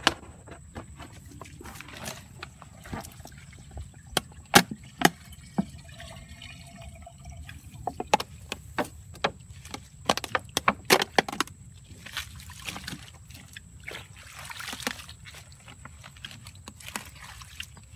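Hands sloshing in shallow pond water and pulling up water hyacinth by the roots, with scattered sharp splashes and drips, in two busier runs near the middle.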